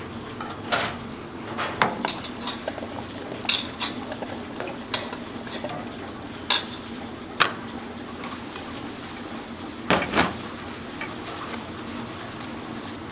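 Kitchen utensils and dishes clinking and clattering in irregular sharp knocks, with a louder double clatter about ten seconds in, over a steady low hum.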